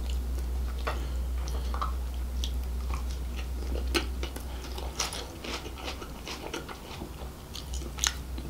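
A man chewing seafood close to the microphone: irregular wet smacks and crunchy clicks, over a low steady hum that fades out about halfway through.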